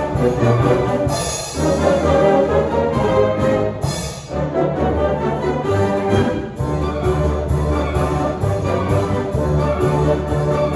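Youth concert band of woodwinds and brass playing a folk-dance piece, with heavy low brass under the melody. The band swells and eases off briefly between phrases, about a second and a half, four and six and a half seconds in.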